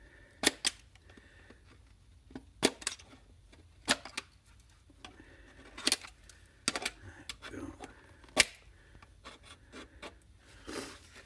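Printed circuit boards and parts being handled, giving about ten irregular sharp clicks and clacks, the loudest about eight seconds in.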